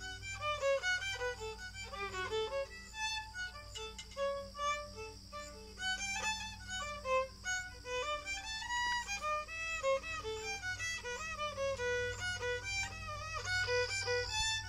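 Solo violin playing a quick melody of many short notes, with vibrato on the held ones.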